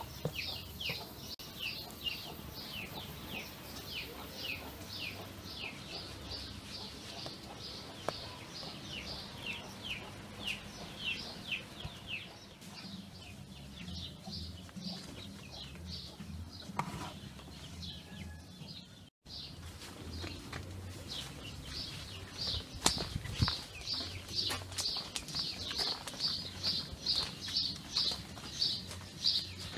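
A small bird chirping over and over in short, high, falling notes a few times a second. The chirps thin out for a few seconds in the middle and come back quicker and louder in the last ten seconds.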